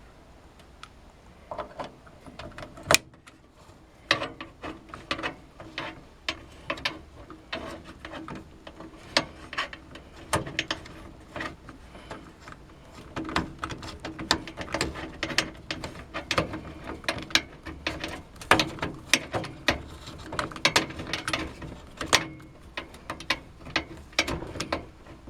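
Screwdriver turning motherboard mounting screws into the PC case's standoffs: a run of small, irregular metallic clicks and ticks, several a second.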